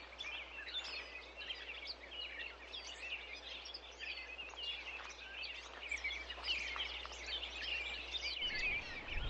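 A chorus of small birds chirping and twittering continuously, many short high calls overlapping, over a faint low hum.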